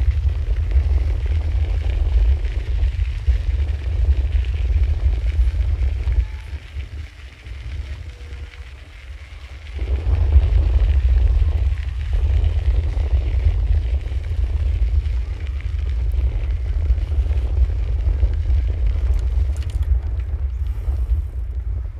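Wind buffeting the microphone of a handheld recorder on a moving bicycle: a heavy, gusty low rumble that eases for about four seconds in the middle, then returns.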